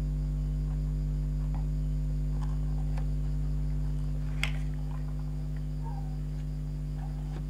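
Steady electrical mains hum, with a few faint small clicks and rustles of hands working a craft piece and one sharper click about four and a half seconds in.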